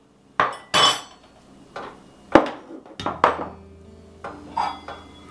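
Metal kitchen clatter: a stainless steel canister set down on the counter and utensils clinking in a crock as one is pulled out. About half a dozen separate knocks and clinks.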